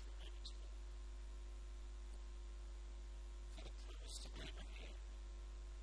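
Steady low electrical mains hum, with faint, indistinct speech for about a second just past the middle.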